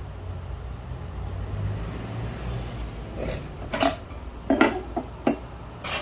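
About six sharp knocks and clatters in the second half, as a light-fitting mounting bracket and a remote control are set down on a wooden chair seat.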